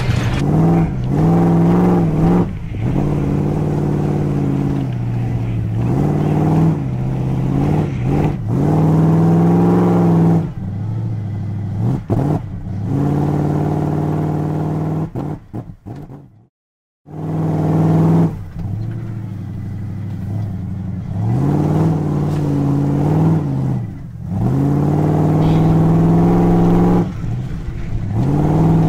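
Engine revving sound effect, its pitch rising and falling again and again, cutting out briefly about two-thirds through.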